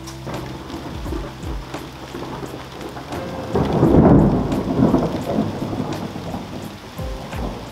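Steady rain falling, with a rumble of thunder that swells about three and a half seconds in and dies away over the next two seconds.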